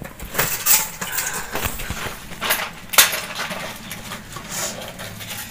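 A hollow bamboo cooking tube being knocked and shaken to tip cooked chicken out onto a leaf-lined steel plate: a run of irregular knocks and clinks, the sharpest about three seconds in.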